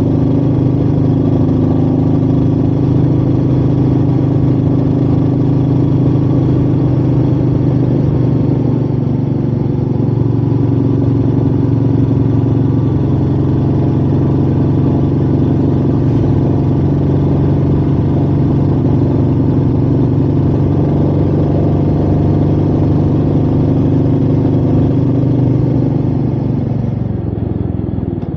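Royal Enfield Meteor 350's single-cylinder engine running steadily under way, with wind noise. Near the end the revs and loudness drop as the throttle closes.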